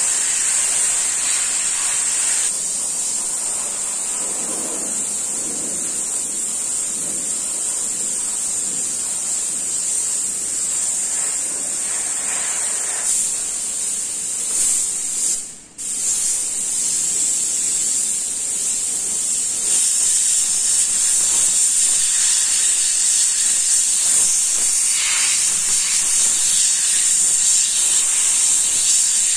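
Airbrush hissing steadily as it sprays paint, cutting out for a moment about halfway through.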